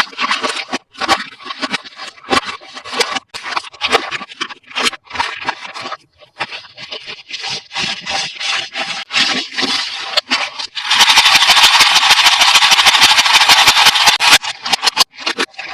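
Toy packaging being handled and opened: irregular rustling, scraping and clicking, then about eleven seconds in a loud continuous crinkling or ripping lasting about three seconds.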